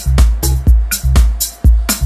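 Techno track with a steady four-on-the-floor kick drum, about two beats a second, a sustained bass line and bright hi-hat and clap strokes between the kicks.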